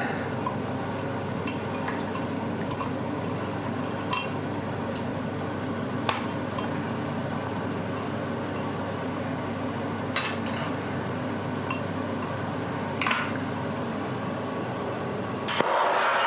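A steady low hum with a few scattered light metallic clinks and ticks. Near the end the jeweller's gas torch comes on again with a loud hiss.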